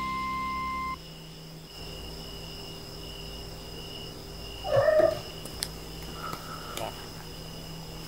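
Ragdoll cat meowing at an insect on the wall, the call of a cat that has spotted prey it wants to catch. One louder, bending meow comes about five seconds in, then a fainter, higher call about a second later.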